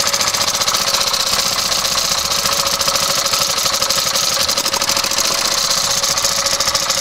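Single-cylinder engine of a 1910 replica Harley-Davidson motorcycle running steadily, a rapid, even string of firing beats.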